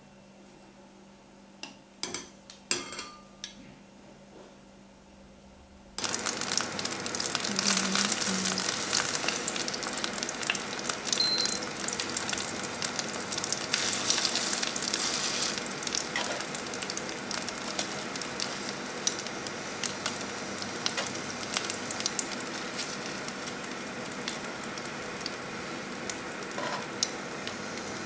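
A few light clinks of utensils. Then, about six seconds in, a pan starts sizzling steadily with egg-dipped rolled bread frying in it, and metal tongs tap now and then as the rolls are turned.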